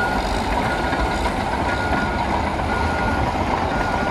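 Reversing alarm of heavy snow-clearing equipment, one steady beep about once a second with each beep lasting about half a second, over a constant low rumble of machinery.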